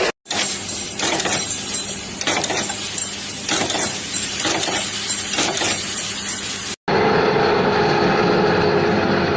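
Machinery noise: a low steady hum under a noisy, clattering sound that swells about once a second. It breaks off abruptly near the end and gives way to a steadier machine hum.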